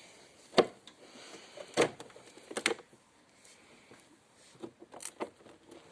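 Battery terminal clamp being put back onto the battery post: a few sharp metallic knocks and clicks, one about half a second in, another near two seconds, a quick pair soon after, and a last one near the end.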